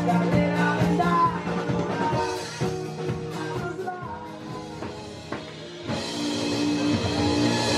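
A live acoustic rock band is playing: a man sings over a strummed acoustic guitar and a drum kit. The music drops to a quieter passage midway, then swells back up with the drums about six seconds in.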